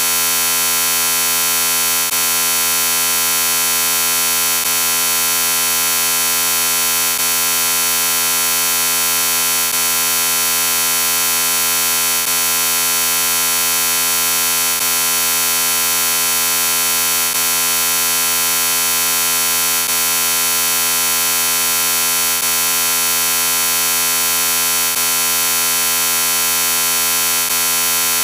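Harsh, steady electronic buzz from a 'chorded robot' audio effect: a dense stack of tones held on one chord. It breaks very slightly about every two and a half seconds as a short clip loops.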